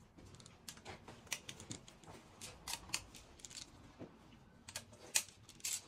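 Irregular light metallic clicks and taps of small engine parts being handled and set on an aluminium cylinder head, with one sharper click a little after five seconds in.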